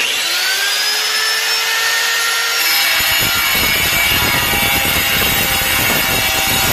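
Angle grinder switched on, its whine rising as the motor spins up to speed, then cutting into a porcelain tile from about three seconds in, a steady loud grinding.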